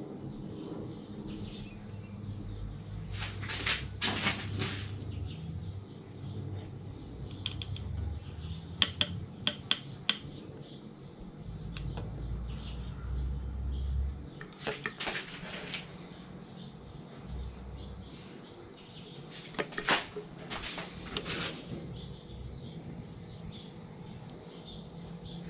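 Metal caulking gun clicking and clacking as it is squeezed and handled, laying adhesive onto the jaw joins: four short clusters of clicks, over a low rumble in the first half.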